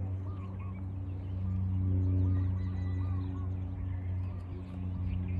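Birds chirping and calling over a steady low hum, the hum swelling a little about two seconds in.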